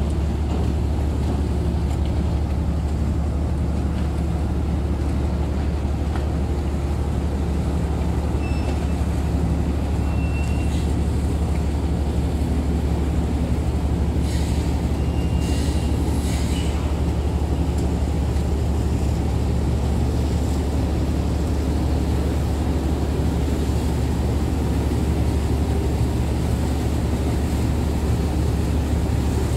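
Car ferry's engines running with a steady low drone, heard from the open deck while the ferry makes its slow approach to the berth.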